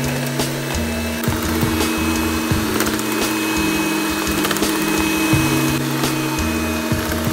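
Fakir electric hand mixer running, its beaters whipping a cream topping in a plastic bowl, with a steady motor hum and scattered clicks. Underneath are low notes that change every second or two, as in background music.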